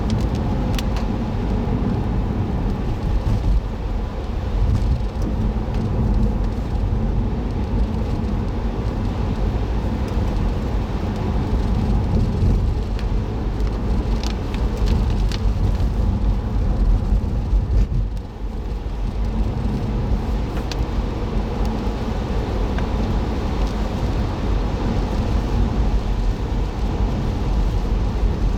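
Car driving, heard from a dashboard camera inside the cabin: a steady low rumble of engine and tyre noise, with a few faint ticks and a brief drop in level about two-thirds of the way through.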